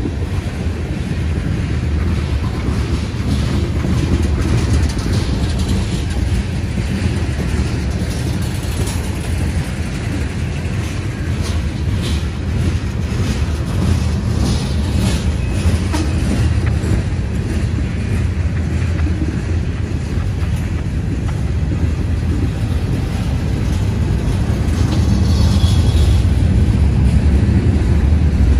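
CSX freight train rolling on the rails with a steady low rumble, and a run of sharp clicks partway through.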